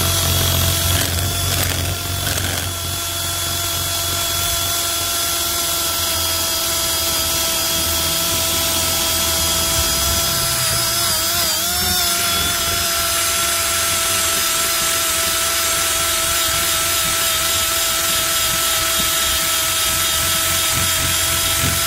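Milwaukee cordless drill spinning a rubber decal-eraser wheel pressed against a truck's painted body panel, rubbing off pinstripe decal. The steady motor whine and rubbing run continuously, with a brief dip and wobble in pitch about halfway through as the load shifts, and stop at the very end.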